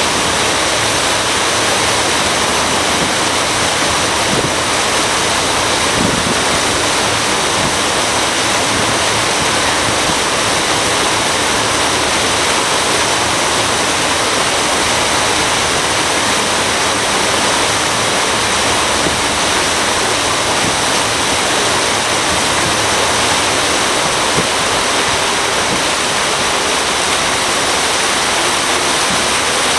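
Steady rushing of water churned past the hull of a moving lake cruise boat, loud and unbroken, with a faint low hum underneath.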